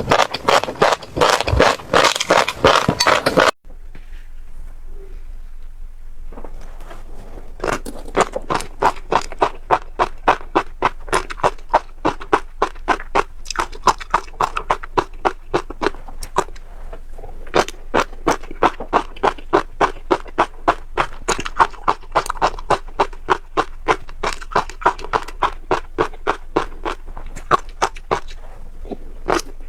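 Close-up crunching of crunchy seeds being chewed. A dense scraping crunch runs for about three and a half seconds and cuts off abruptly. After a quieter pause it gives way to steady crisp crunches, about three or four a second.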